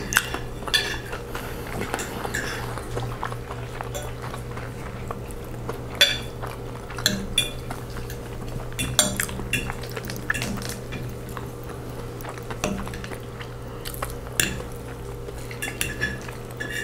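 Metal forks clinking and scraping on ceramic dinner plates in irregular, sharp clicks as food is cut and scooped, over a steady low hum.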